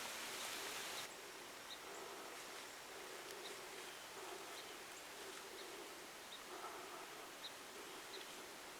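Quiet woodland ambience: a faint hiss for about the first second stops abruptly, then scattered short high chirps, likely small birds, sound over a low steady background.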